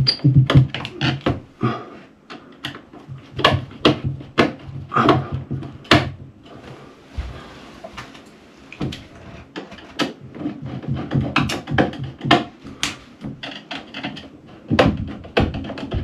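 Irregular clicks, knocks and scrapes of a flat ceiling light fitting and a screwdriver being handled as the fitting is fixed up against the ceiling.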